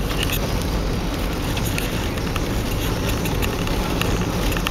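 Steady road and engine noise inside a moving car's cabin, tyres on a snowy road, with scattered faint short ticks.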